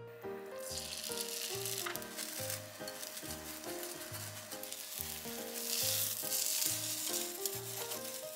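Beaten egg sizzling in a hot rectangular tamagoyaki pan, the sizzle starting as the egg goes in and loudest about six seconds in, with chopsticks working the cooking egg. Background music plays underneath.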